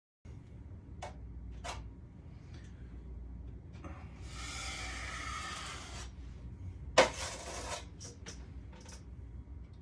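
Drywall-mudding work with a metal drywall knife: scattered light taps, a long scrape about four seconds in, and a sharp knock about seven seconds in followed by a shorter scrape, over a low steady hum.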